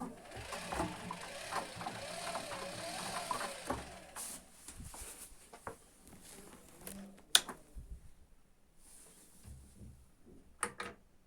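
Washing machine drum motor turning the drum during the rinse, a whine that wavers up and down in pitch for about four seconds before dying away. A sharp click comes about seven seconds in, with a couple more near the end.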